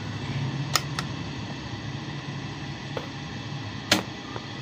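A few sharp clicks from metal parts and tools being handled at a Juki buttonhole machine's needle plate, the loudest about four seconds in, over a steady low hum.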